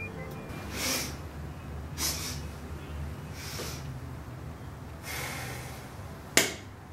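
A woman sniffing the air hard about five times in short, separate sniffs, smelling for cigarette smoke, with the last sniff near the end the sharpest.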